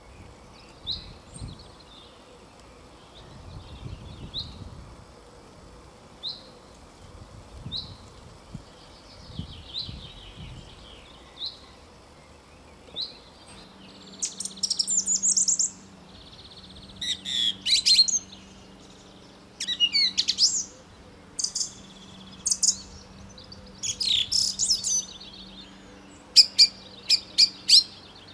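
Songbird chirps, single short notes about once a second, then from about halfway a song thrush singing loud, varied phrases, repeating some notes several times in quick succession.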